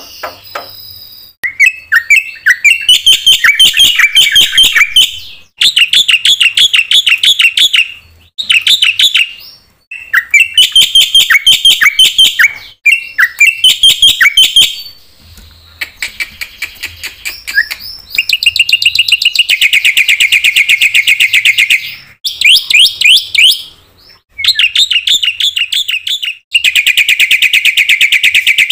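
A black-winged starling (jalak putih) singing loudly. Phrases of a few seconds of rapid, repeated sharp notes are separated by short pauses, and two longer phrases are fast, even trills.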